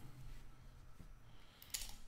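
Faint handling of a cardboard trading card box, with one short sharp crackle near the end as the box is opened.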